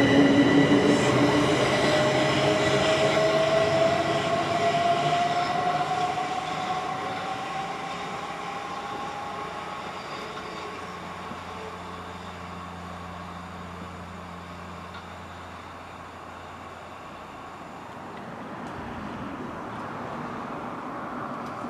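Southeastern Class 375 Electrostar electric multiple unit accelerating away from the platform, its traction motors whining and rising steadily in pitch while the train's running noise fades as it leaves. Near the end the level swells slightly as another train is faintly heard in the distance.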